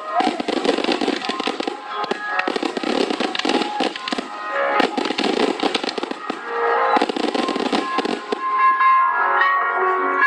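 Fireworks crackling in rapid, dense bursts, with music playing alongside. The crackle thins out near the end, leaving mostly music.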